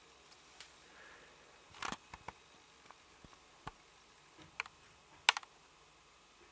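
Scattered light clicks and taps over faint hiss, about eight in all, the sharpest a little after five seconds in: handling noise from the handheld camera.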